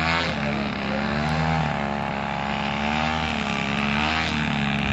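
Radio-control model airplane engine running, its pitch wavering up and down repeatedly over a steady low hum.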